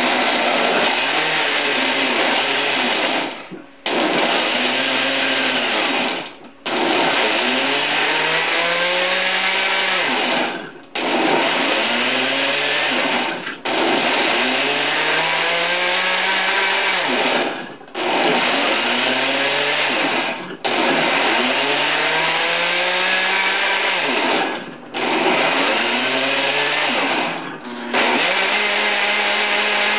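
Countertop blender motor running on a thick load of frozen fruit and juice. It is stopped and restarted about eight times in quick pulses, and its pitch climbs back up after each restart as the blades get going again.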